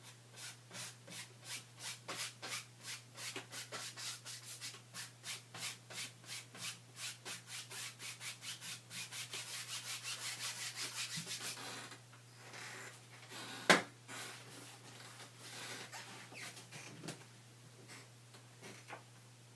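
Repeated rubbing strokes across a surface, about two to three a second, quickening into a fast continuous scrubbing before stopping. A single sharp knock follows, then a few faint scattered strokes, over a steady low hum.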